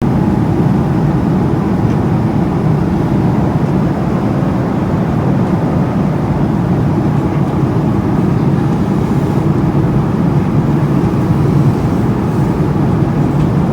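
Steady drone of an airliner in flight, engine and airflow noise heard inside the passenger cabin.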